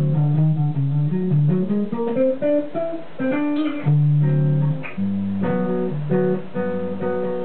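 Five-string electric bass guitar played solo: a quick run of single notes climbing upward, then a repeated riff of held low notes with higher notes sounding over them.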